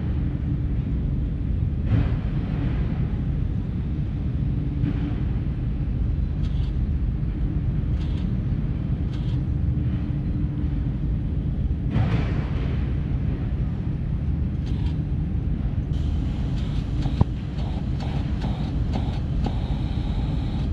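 Steady low rumble of wind on the microphone, with a few light knocks and one sharp click near the end while a kerosene pressure lamp's valve knob is worked by hand.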